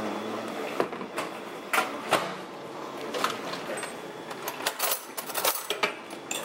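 Irregular clicks, taps and light knocks, a couple a second, from tableware being handled at a dinner plate.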